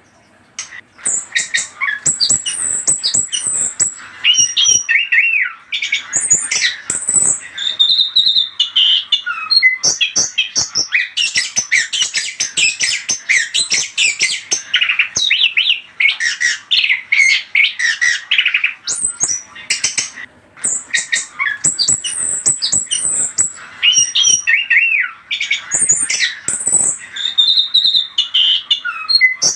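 Chestnut-capped thrush (anis kembang) singing a long, dense song of quick whistles, gliding notes and harsh chattering notes, starting about a second in.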